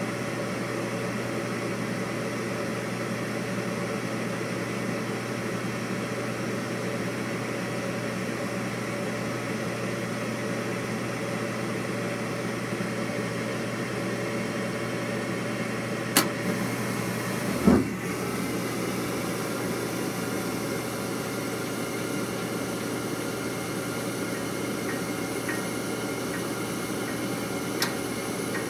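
Furnace running with a steady mechanical hum. A sharp click comes about two-thirds of the way through, followed a moment later by a short low thump, and another click near the end.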